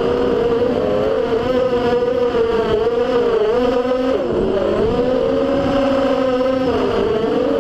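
FPV drone's electric motors and propellers whining as heard from its onboard camera, with wind noise. The pitch rises and falls with the throttle, dropping sharply a little past halfway, then climbing back.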